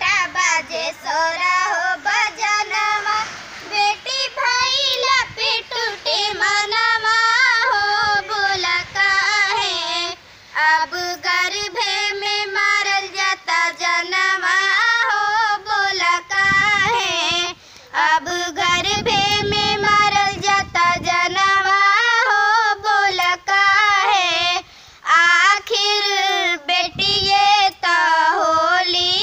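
A young schoolgirl singing a slow, sad song solo and unaccompanied, her pitch wavering and ornamented, with short pauses for breath between phrases.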